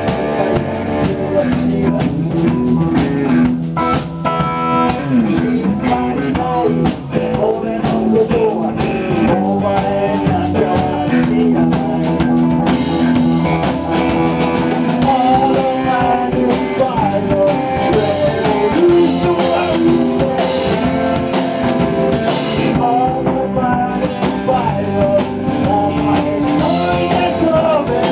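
Live blues-rock band playing: drum kit, electric bass and electric guitar, with keyboards, as one loud, continuous full-band passage.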